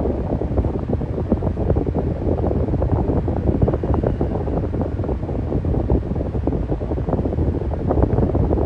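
Electric fan running with a steady low whooshing noise of moving air and a fine flutter.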